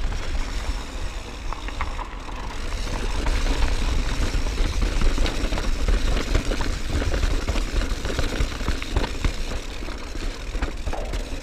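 Mountain bike rolling fast downhill, its tyres crunching on loose gravel and then over stone slabs, the bike rattling and knocking over the bumps, with a steady low wind rumble on the microphone. The knocks come thicker in the second half, on the stone section.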